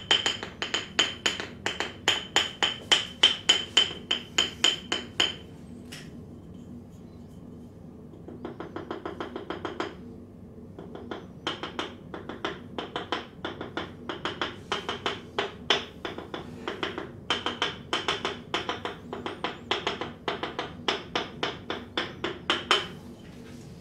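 Percussive hand strikes of a hard massage, chopping and slapping at about four a second. They pause for a few seconds near the middle, where a short flurry of faster, lighter taps comes in, then resume.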